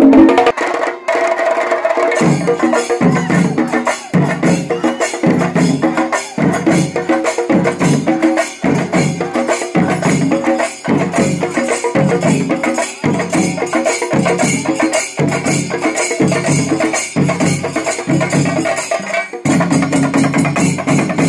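Percussion music: drums struck in a steady beat of about three strokes every two seconds, with dense metallic clashing over them. The pattern changes about half a second in and again near the end.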